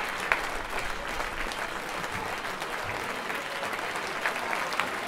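Football crowd applauding, with individual hand claps standing out sharply from a steady wash of clapping.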